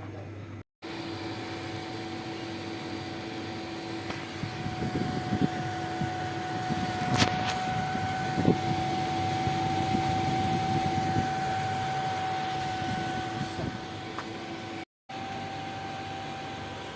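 Refrigerator running with a steady hum and a higher whine: the noise being tracked down near the fan impeller. In the middle come rustling and a few sharp knocks as a part is moved slightly by hand.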